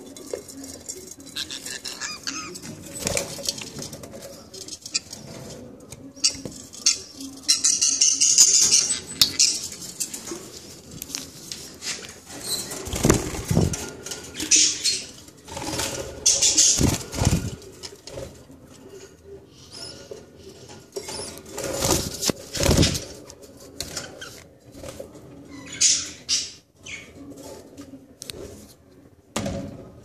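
Budgerigars chirping and chattering in short repeated bursts, with several short bumps near the middle of the stretch.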